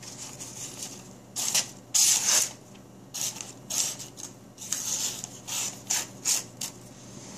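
Pocketknife blade slicing through newspaper in a string of short papery cuts and tears, about ten over several seconds: a paper-slicing sharpness test.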